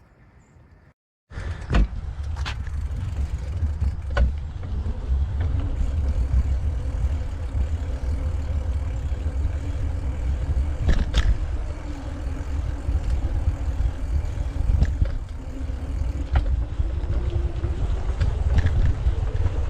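Riding noise on a bike path: steady wind rumble on the microphone with scattered knocks and rattles from the bike over bumps. It starts abruptly after a short silent cut about a second in.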